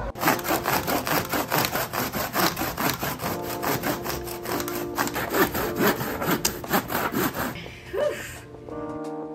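Handsaw cutting through a rolled bundle of red oak pole wrap in fast, even back-and-forth strokes. The sawing stops near the end.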